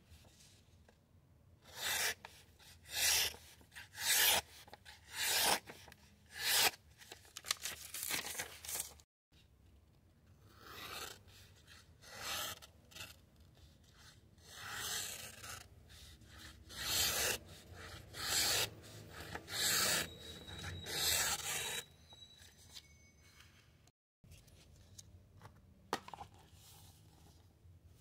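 The AUS-8 steel blade of a Boker Kalashnikov automatic folding knife slicing through a sheet of paper, a dry rasping hiss with each cut. First comes a run of about seven quick cuts roughly a second apart, then after a short break a second run of softer, slower cuts.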